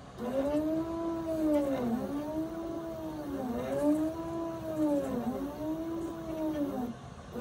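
Stepper motors of a leadscrew-driven MPCNC CNC machine whining as an axis moves back and forth. Each move is a pitched whine that rises, holds and falls again over about a second and a half, and it repeats four or five times.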